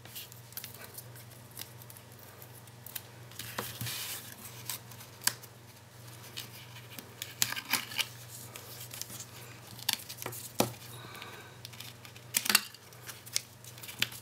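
Scissors snipping pieces of red sticky strip tape, with tape pulled off the roll and card handled between cuts: scattered short sharp snips and rustles. A low steady hum runs underneath.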